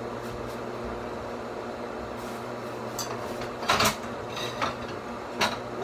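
A fork clinking against a metal cooking pot a few times, the loudest about four seconds in, over a steady low hum.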